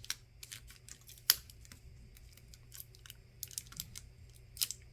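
Sparse small clicks and taps of hand tools working at a phone's battery, with one sharper click about a second in and a few quicker ones near the end.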